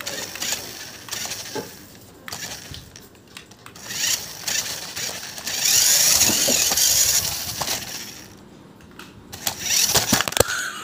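Toy RC car running, its small electric motor whirring with plastic clicks and rattles. The loudest stretch of whirring comes a little past the middle, with a burst of clicks near the end.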